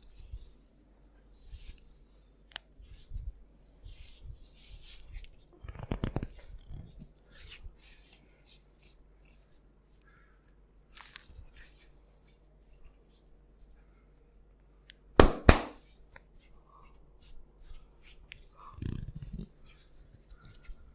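Hands massaging a person's head and body: soft rubbing and rustling of skin and hair with scattered light taps. A quick run of sharp clicks, the loudest sound, comes about fifteen seconds in.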